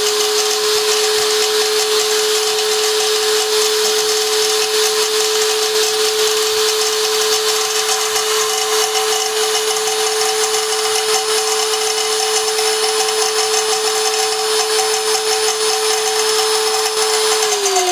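Small electric stainless-steel high-speed grinding mill running at full speed, milling eggshells into powder with a loud, steady whine. Near the end the motor is switched off and the whine falls in pitch as it spins down.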